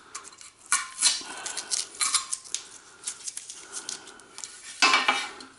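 Painter's tape being peeled off an extruded aluminum light track in short, irregular rips and crackles; the tape is really sticking. A louder burst of noise comes about five seconds in.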